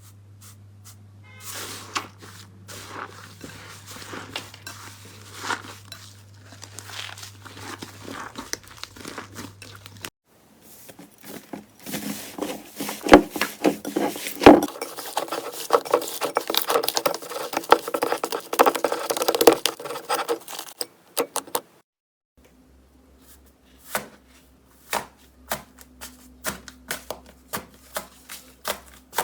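Slime being squeezed and pressed, giving crinkly crackling and sharp clicking pops. It comes in short clips: faint at first, then a loud dense run of crackles, and near the end a string of evenly spaced clicks about two a second.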